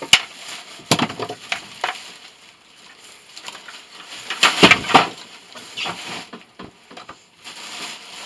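Irregular sharp knocks and clatter of hand tools on metal while an electric motor is taken apart for scrap, with a longer crunching, scraping stretch about halfway through.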